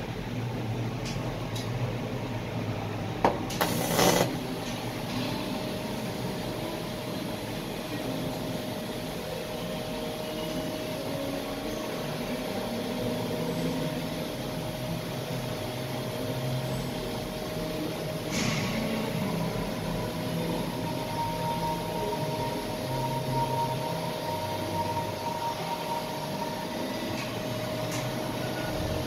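Welding equipment working inside a steel tank: a steady hum and hiss with a faint held tone, broken by a click and a short loud burst about three to four seconds in and another short burst about eighteen seconds in.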